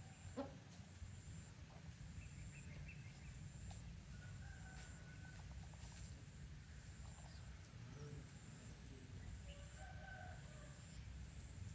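Faint chicken calls: a few short clucks or crows over a steady low rumble, with a sharp tap about half a second in.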